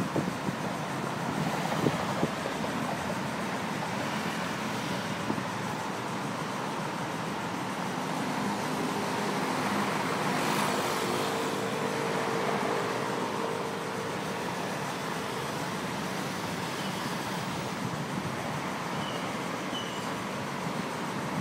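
Dense rush-hour road traffic on a busy multi-lane road heard from above, a continuous mix of engines and tyres. It swells louder for a few seconds around the middle, where a steady engine drone passes through.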